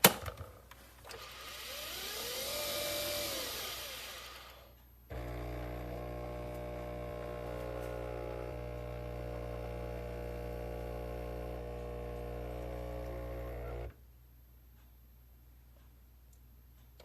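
Nespresso Vertuo espresso machine brewing. A motor whir swells and rises then falls in pitch. Then a steady hum of the pump and motor starts suddenly about five seconds in, runs about nine seconds, and cuts off abruptly.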